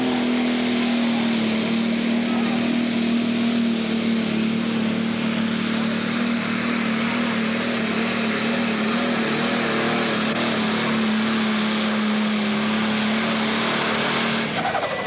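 Pro Stock pulling tractor's turbocharged diesel engine held at full throttle through a pull, one steady high engine note that eases off near the end.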